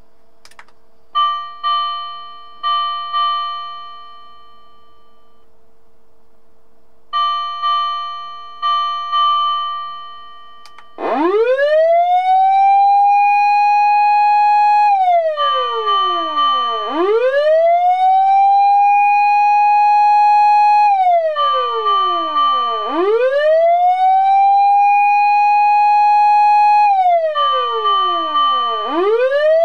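Osaka Siren MK-11 electronic fire siren played through a speaker: first its bell tone, two groups of four struck, fading bell strokes a few seconds apart, then about a third of the way in its wail tone, rising fast, holding high for a few seconds and falling, repeating about every six seconds.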